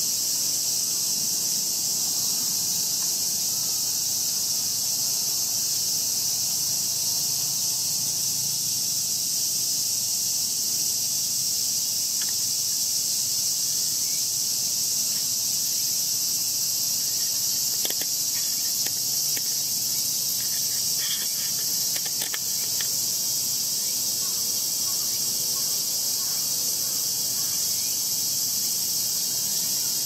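Steady, high-pitched chorus of insects buzzing without a break, with a few faint ticks in the middle.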